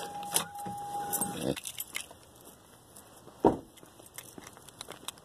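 A steady tone stops about a second in, then a single loud thud about three and a half seconds in as the pickup truck's door is shut, with light clicks and rattles of keys and footsteps around it.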